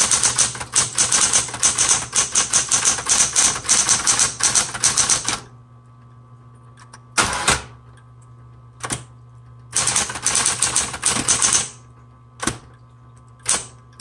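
1970s Smith Corona Coronet Automatic 12 electric typewriter typing: a fast run of key strikes for about five seconds, then a single longer clatter about seven seconds in as the powered carriage return sends the carriage back, a few lone key clicks, and another short run of typing about ten seconds in. The motor hums steadily underneath.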